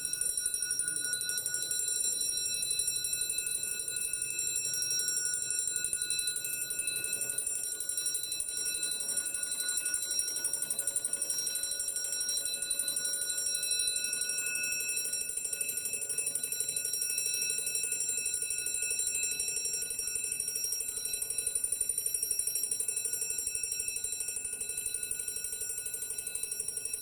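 Alarm of a 1750 Dutch longcase clock by Gerrit Knip ringing: a hammer striking its bell rapidly, making one continuous, high, steady ringing.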